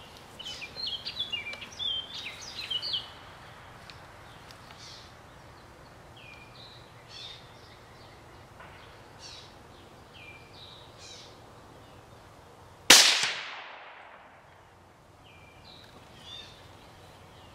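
Birds singing, and about thirteen seconds in a single .22 Magnum rifle shot: one sharp crack with a ringing tail that fades over about a second.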